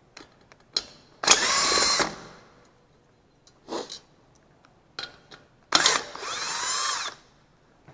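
Cordless drill spinning a 10 mm socket to back out valve-cover bolts, in two short runs whose pitch bends as the motor speeds up and slows: one about a second in, a longer one near the end. Light clinks of the loosened bolts being handled come between the runs.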